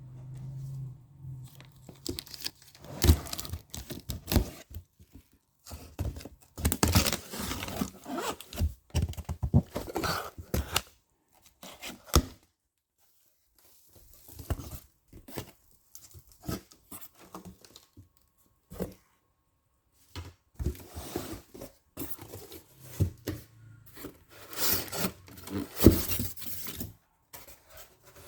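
Product packaging being opened by hand: tape and cardboard tearing, with plastic wrapping crinkling and occasional thunks of the box being handled. The rustling comes in irregular spells, with a short pause about halfway through.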